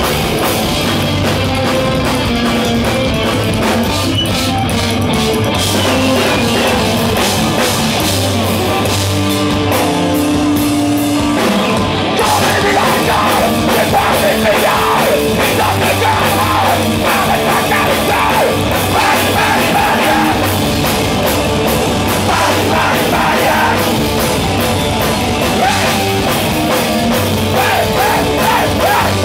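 Live psychobilly band playing: electric guitar, slapped-style upright double bass and drums at full volume. The band gets a little louder about twelve seconds in.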